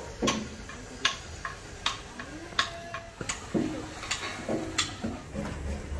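Sharp metallic clicks and knocks at irregular spacing, roughly one a second, as men work on a steel I-beam: metal parts and tools striking steel.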